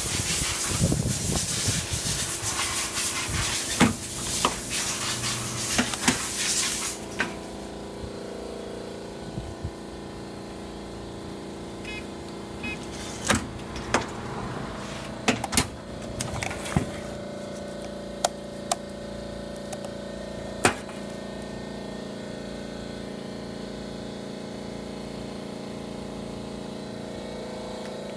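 Semi-automatic strapping machine running with a steady motor hum. A loud rushing noise fills the first seven seconds, and scattered sharp clicks and knocks come between about 13 and 21 seconds in.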